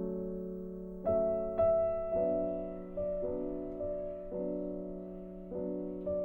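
Slow, gentle background piano music: single notes and chords struck about once a second, each ringing on and fading.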